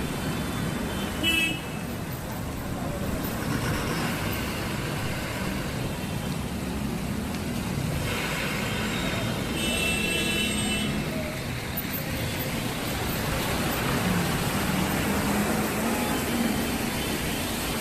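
Steady road traffic noise from trucks and cars on a waterlogged road, with a short horn toot about a second in and a longer horn blast around ten seconds in.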